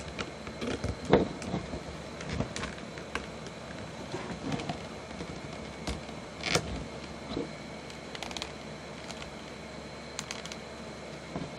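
Scattered small clicks and taps of a plastic action figure and its accessories being handled and fitted, with a sharper knock about a second in and another past the middle, over a steady background hiss.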